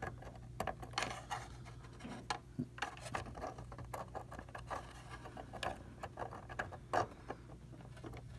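Small hard parts being handled and rummaged through: irregular light clicks, taps and rattles, one sharper knock about seven seconds in, over a low steady hum.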